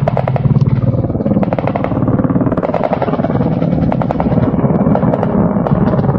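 A group of low-flying Mi-8 helicopters, their rotors thudding rapidly and steadily, is joined several times by clusters of sharp cracks.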